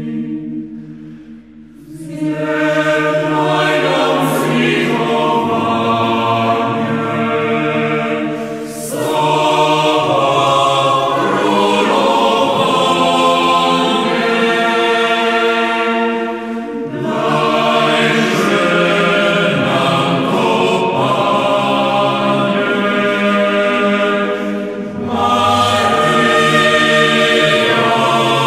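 A choir singing in long, sustained phrases, with brief pauses between phrases about every eight seconds. The singing begins about two seconds in.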